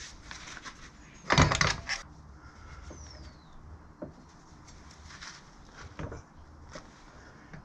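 Metal clattering and clicking as new motorcycle brake pads are worked into the caliper: one loud rattling clatter about a second in, then a few light separate clicks.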